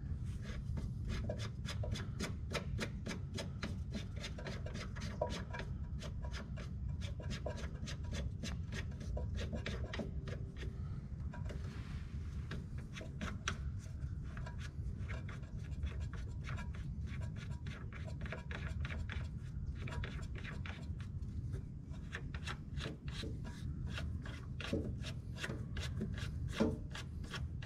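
A nut being spun by hand onto the threaded fitting of a through-transom live well pump: a long run of small clicks and rubbing, about three or four clicks a second. A steady low hum runs underneath.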